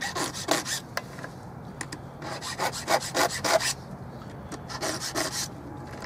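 Hand file scraping across the cutter teeth of a Husqvarna chainsaw chain, in short runs of quick rasping strokes with the longest run in the middle: touch-up sharpening of the chain.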